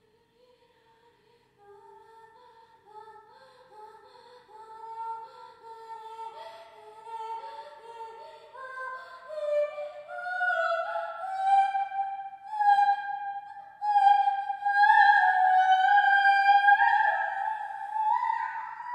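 A single unaccompanied high voice sings long held notes without words, sliding between them as the pitch climbs step by step. It starts very softly and grows steadily louder, loudest near the end.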